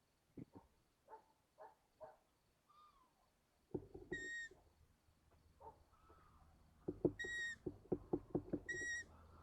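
Long-eared owl chicks in the nest: three short, high squeaky calls, typical of owlet begging, among bursts of knocks and scuffling in the nest.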